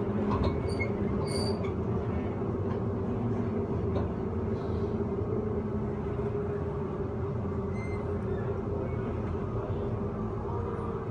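Queensland Rail electric suburban train running along the track, heard from inside the carriage: a steady rumble of wheels on rails with a constant hum underneath. A few light clicks come near the start.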